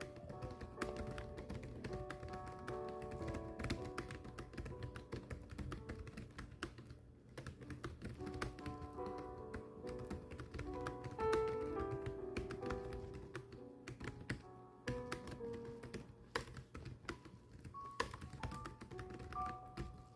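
Steady, fast typing: keys clicking in quick irregular runs with brief pauses, over background music with a gentle melody.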